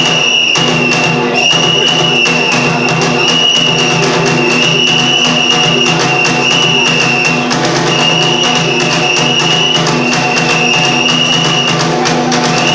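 Kagura accompaniment music: a drum beating a quick, steady rhythm under a high-pitched melody of long held notes, each about a second, with short breaks between them.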